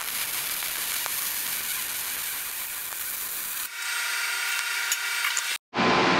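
Wire-feed welder arc crackling and hissing as it welds square steel tube. After a few seconds the arc stops, leaving a steady hum, and the sound drops out for an instant near the end.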